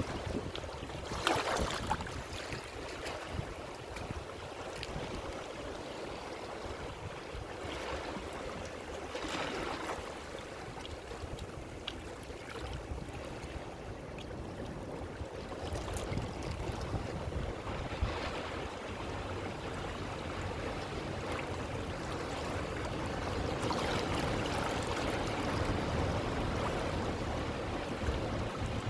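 Ocean waves washing ashore: a continuous rush of surf that swells and recedes, with a louder surge about a second in and a longer, fuller swell building near the end.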